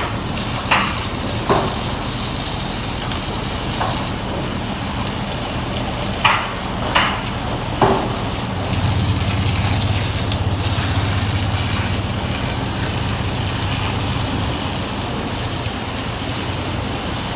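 Car wash high-pressure wand spraying water onto a pickup truck's body and the concrete floor: a steady hiss over a low hum, with a few short sharp hits in the first eight seconds.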